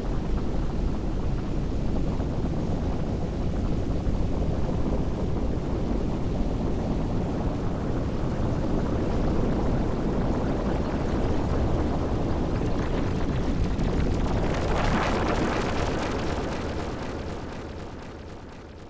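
Experimental noise-drone soundtrack: a dense, low rumbling wash with no clear notes. It swells into a brighter, hissing surge about fifteen seconds in, then fades out over the last few seconds.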